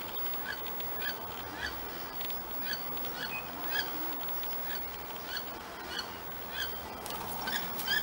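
Female wood duck calling: a short, high, rising-and-falling call repeated about once or twice a second, louder near the end.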